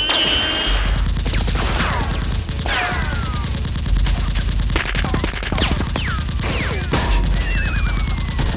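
Sustained rapid automatic gunfire, dubbed-in gun sound effects for a mock battle, with several falling whistles over the shots.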